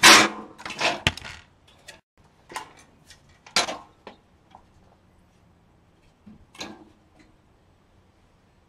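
Dishwasher parts being handled during a teardown: a loud clatter in the first second, then a few separate knocks and taps spread over the next several seconds.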